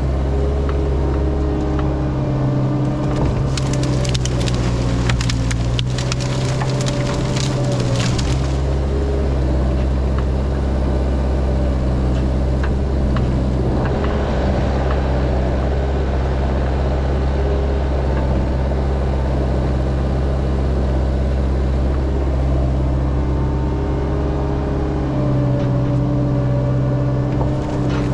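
Cat 306 mini excavator's diesel engine running steadily under load, with wood cracking and splintering in spells, once in the first third and again near the end.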